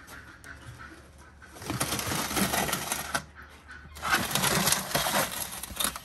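Large metal tray scraping across the floor of a brick wood-fired oven as it is pushed in under a whole lamb, in two scrapes of about a second and a half each.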